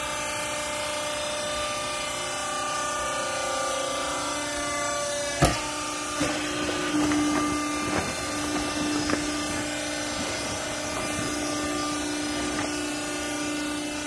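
Hydraulic power unit of a vertical clothing baler running with a steady motor hum. A single sharp knock comes about five seconds in, followed by a few lighter knocks and handling noises.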